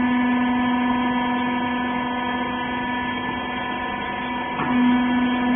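Used-clothing baler's hydraulic power unit running with a steady hum. Near the end the tone breaks off briefly with a small knock, then comes back louder.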